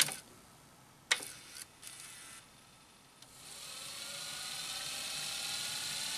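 Tascam DA-30 mkII DAT deck tape transport. A click cuts off the winding at the start, then a second click about a second in is followed by a short burst of mechanism noise. From about three seconds in the tape winds at high speed, a steady whir that rises slowly in pitch as the reels speed up; the freshly re-belted transport is spooling normally.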